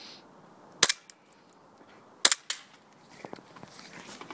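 Gas blowback airsoft pistol firing two shots about a second and a half apart, each a sharp pop followed by a fainter click. A few light handling clicks near the end.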